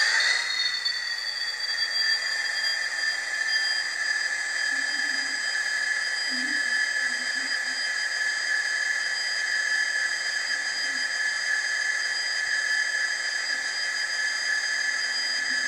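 Hornby TTS sound decoder in an N gauge Class 66 model playing the Class 66 diesel engine sound through its tiny speaker: a steady high whine over hiss. Its pitch glides and settles in the first half-second.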